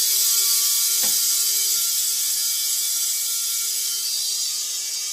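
Compressed air hissing steadily through the valve and hose from the Husky compressor's tank into the empty propane expansion tank as the two tanks equalize in pressure; the hiss slowly grows quieter as the pressures even out.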